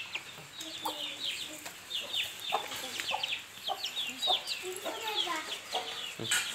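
Country chicks peeping constantly in short, high, falling chirps as they feed, with lower clucks from the hens underneath. One sharp knock about six seconds in.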